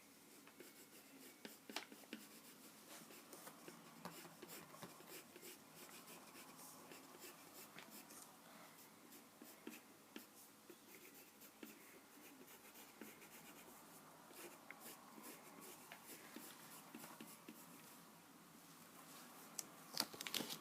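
Faint scratching and ticking of drawing strokes on paper, with scattered small clicks and a few sharper taps, the loudest just before the end.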